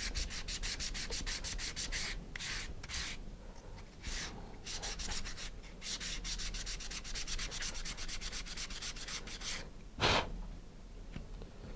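Sandpaper on a flat sanding bar scraping back and forth over the tabs of a laser-cut plywood part in quick, even strokes, sanding down a fit that is too tight. Two runs of fast strokes are split by a few slower strokes, and there is a single louder knock near the end.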